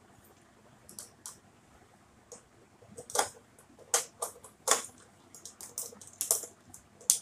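Fluorescent tube being fitted into its batten fitting: a quick run of sharp clicks and taps as the tube and its end pins knock against the metal housing and seat in the plastic lamp holders. The clicking starts about a second in and grows denser and louder, with the sharpest click near the end.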